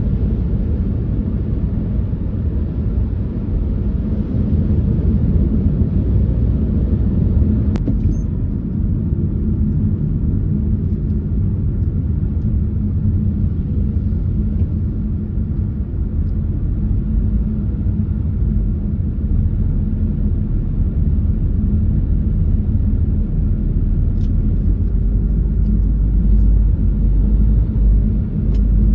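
Car driving, a steady low rumble of road and engine noise heard from inside the cabin, with a single sharp click about eight seconds in.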